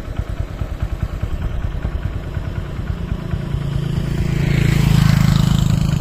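A motorcycle engine approaching on the road, growing louder and loudest about five seconds in, over a steady idling engine sound that pulses close by.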